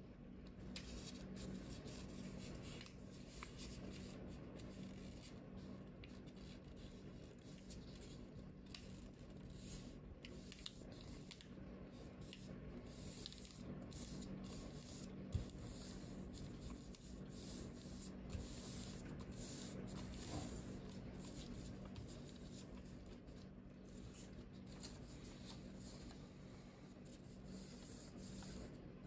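Faint rustling and rubbing of a sheet of paper being folded and creased by hand, with one short tap about halfway through, over a low steady hum.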